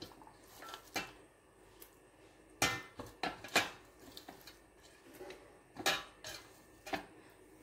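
Stainless steel pot and utensils clinking and knocking: a scatter of short, sharp knocks at irregular intervals, the loudest cluster about a third of the way in.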